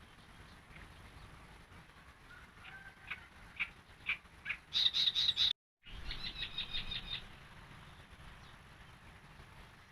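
Yellow-vented bulbul (trucukan) singing: a run of short chirps that grows louder, then two quick rapid trills split by a brief moment of total silence, over a low steady rumble.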